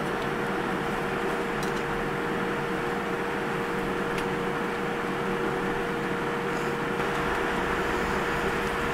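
Cabin noise of a Boeing 787-9 airliner taxiing: a steady rushing hum from the engines and air conditioning, with a steady whine held on one pitch.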